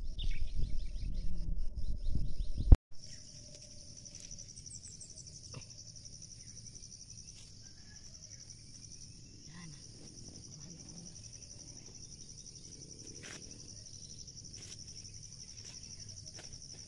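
Wind buffeting the microphone for the first few seconds, cut off sharply. Then a steady high chorus of crickets, with a few faint crackles of dry corn husks being handled.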